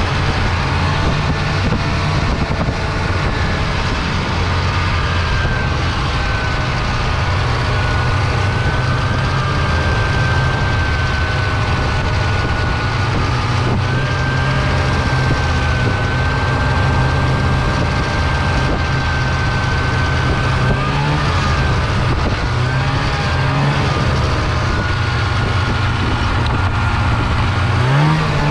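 Snowmobile engine running at a steady trail speed, with a steady high whine over it; near the end the engine speeds up and its pitch rises.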